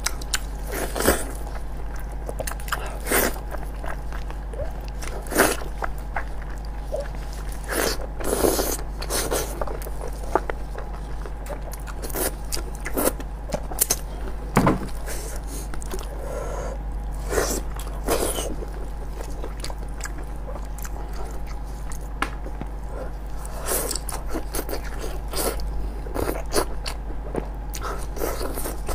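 Close-miked eating of braised sheep's head: biting and chewing, with scattered sharp wet crunches and smacks, over a steady low hum.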